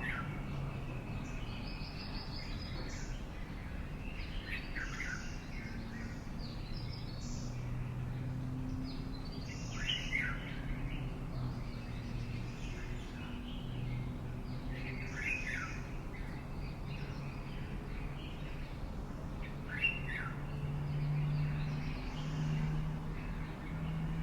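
Songbirds calling, one repeating a short, falling phrase about every five seconds, with higher chirps between, over a low steady hum.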